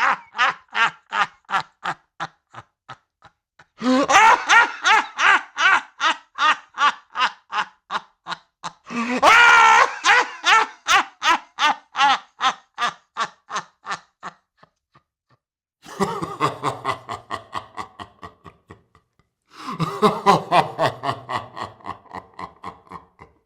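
Creepy ghost-laugh sound effect: a voice laughing in repeated fits, each a run of quick 'ha' pulses that slows and fades away. Four new fits start after the first one dies off, and the last two are deeper.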